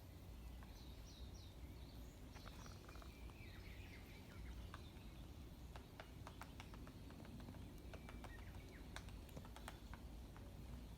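Japanese pygmy woodpecker pecking at a tree: faint, sharp taps coming irregularly from about two and a half seconds in, with small birds chirping in the first couple of seconds.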